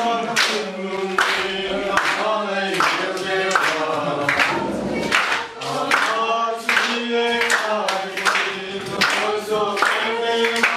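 A mixed group of men and women singing a lively song together, clapping their hands in time about twice a second.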